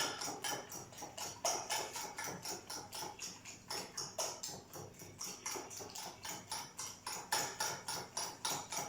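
A fork beating eggs in a deep plate, clicking against the dish in a quick steady rhythm of about four to five strokes a second, stopping near the end.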